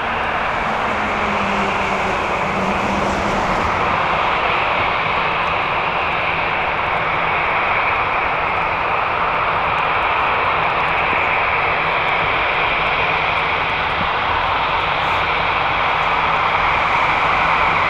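Jet airliner's engines running, a steady noise that slowly grows louder.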